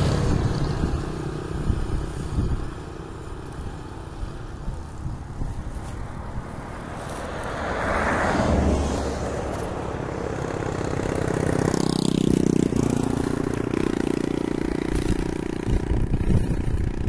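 A motor vehicle engine running nearby: a noisy swell that rises and fades about halfway through, then a steady low engine hum with a clear pitch for a few seconds.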